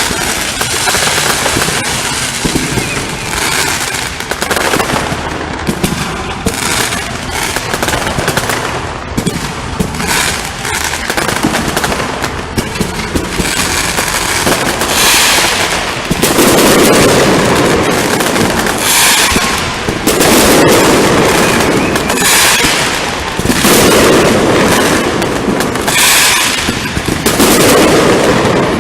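Aerial fireworks display: a rapid, continuous run of bangs and crackling shells, then from about halfway through, bigger bursts every three to four seconds, each followed by crackling.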